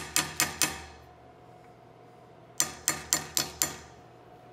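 Light hammer taps on a metal block held against a steel underlug, driving it sideways into its dovetail on a rifle barrel to center it. Three quick taps, a pause of about two seconds, then five more, each with a short metallic ring.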